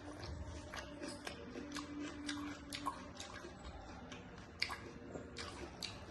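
A person chewing food close to the microphone, with irregular wet mouth clicks and smacks several times a second. The loudest smack comes a little over four and a half seconds in.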